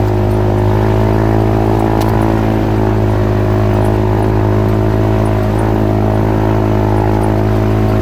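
Polaris RZR side-by-side's engine running at a steady pitch while driving a rocky dirt trail, heard from on board.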